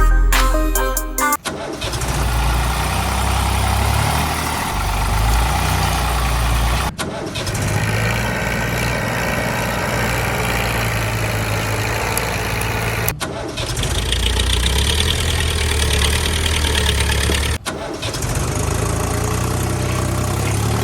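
Tractor engine running steadily, in several stretches joined by abrupt cuts.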